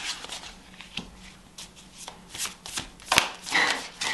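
Tarot cards being shuffled by hand: a run of quick card flicks and slaps that thins out in the middle and picks up again over the last couple of seconds, with one sharper snap about three seconds in.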